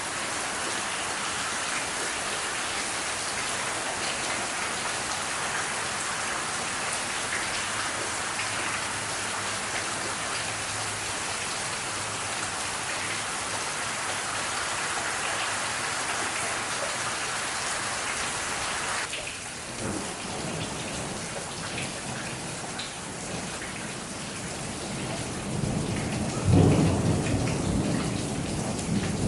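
Heavy rain pouring steadily in a thunderstorm. The rain sound changes abruptly about two-thirds of the way in, and near the end a loud, low rumble of thunder rolls in.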